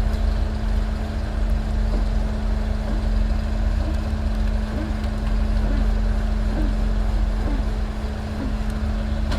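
Heavy tracked excavator's diesel engine running steadily, a deep rumble with a constant hum through it.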